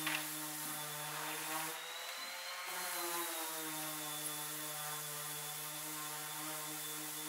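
Woodworking machine, most likely the sliding table saw, running steadily without cutting: an even motor hum with a thin high whine.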